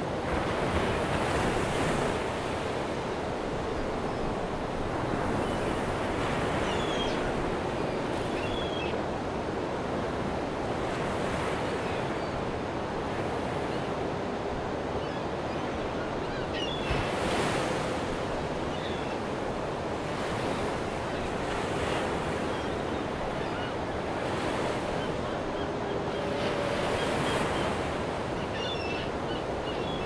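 Ocean surf: a steady wash of waves breaking and swelling about every five seconds, with a few faint high chirps.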